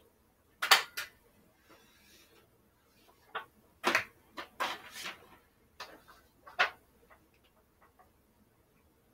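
Irregular knocks and clatters of hard objects being handled and set down, several in a row. The loudest comes about a second in.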